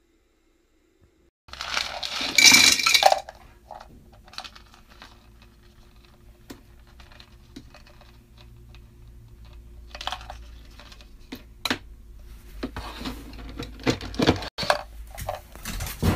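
Dry dog kibble rattling as a plastic cup scoops it from a plastic storage bin, starting about a second and a half in and loudest just after. Further rattles and clicks come from about ten seconds on and cluster near the end.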